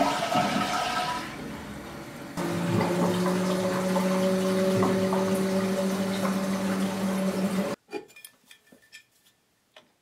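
Toilet flushing with rushing water, then about two seconds in a steady low hum sets in over the water as the tank refills. The humming on refill is the sign of a faulty fill valve that doesn't shut the water off properly as the float rises. The sound cuts off suddenly near the end.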